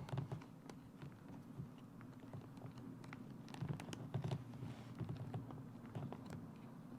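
Faint, irregular small clicks and handling noise as a zipper slider is worked onto the zipper teeth and tape by hand, with a busier cluster of clicks around the middle.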